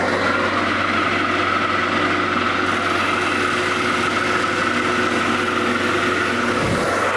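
Portable band sawmill's engine running steadily, with a steady high tone over the engine noise.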